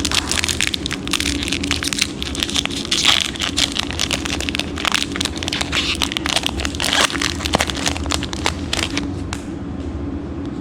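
Crinkling and crackling of a foil booster-pack wrapper and Magic: The Gathering cards being handled, a dense run of sharp crackles that dies away near the end, over a steady low hum.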